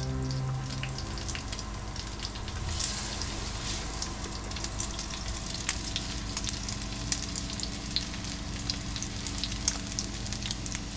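Food frying in a pan on a stove, a steady sizzle with many sharp crackles and pops. Background music fades out about a second in.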